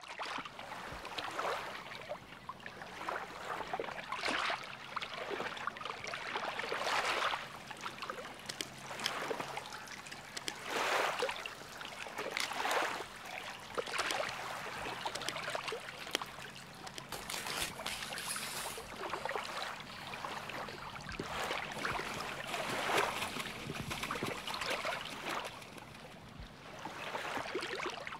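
Sea water sloshing and splashing, swelling and ebbing irregularly every second or two, with small scattered splashes.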